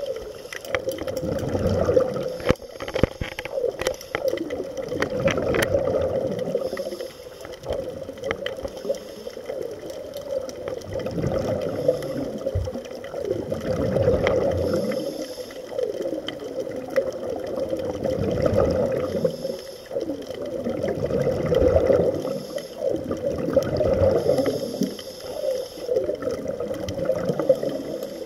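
Scuba regulator exhaust: exhaled air bubbling and gurgling underwater in surges that come and go about every three to four seconds with each breath, over a steady hum. A few sharp clicks sound in the first several seconds.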